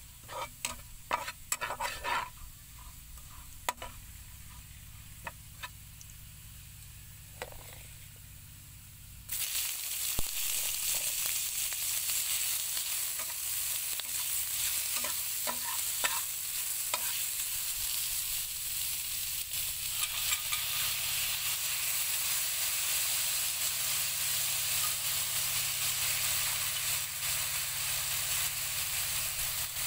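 Garlic frying quietly in a nonstick pan, with a metal spatula scraping and tapping the pan. About nine seconds in, pork pieces go into the hot oil and a loud, steady sizzle starts, with the spatula clicking now and then as they are stirred.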